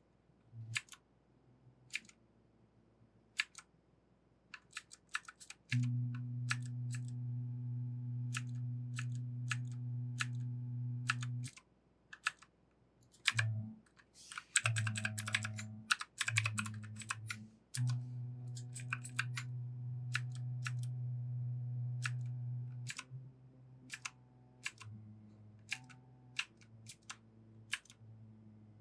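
Scattered clicky key presses on a 60% mechanical keyboard with Outemu Blue clicky switches, single clicks spaced out with a quick flurry about halfway through. A low steady hum comes and goes, running for several seconds twice.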